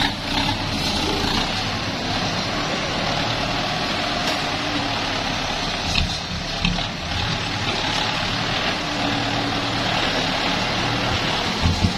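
Diesel engine of a farm tractor with a front dozer blade running steadily as it drives close by, with one short knock about halfway through.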